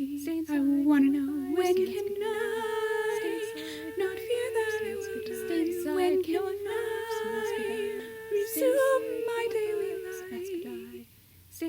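Several layered voices singing a cappella in harmony, with no instruments. They stop briefly near the end.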